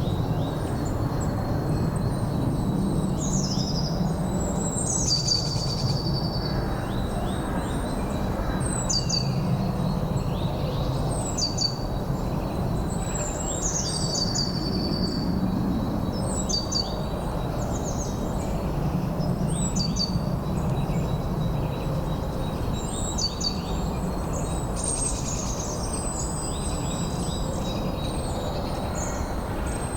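Songbird singing short, high, falling phrases, one every two to three seconds, over steady low wind rumble.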